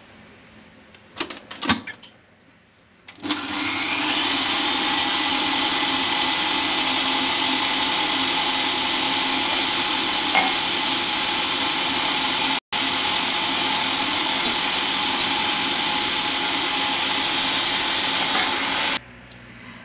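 Electric stand mixer with a wire whisk whipping fresh cream. A couple of clicks as the speed knob is turned, then about three seconds in the motor starts and runs at a steady pitch. It cuts out for an instant about halfway and stops just before the end.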